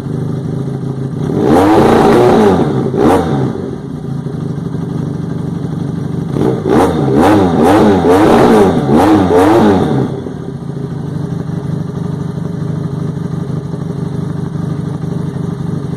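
Twin-cylinder engine of a Zongshen-built Yamaha R3 replica motorcycle idling, revved up and back twice around two to three seconds in, then blipped quickly several times in a row from about six to ten seconds in before settling back to a steady idle.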